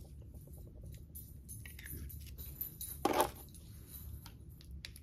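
Quiet handling of an AirPods Pro case as it is fitted into a new cover: small plastic clicks and fumbling, with one short louder knock about three seconds in.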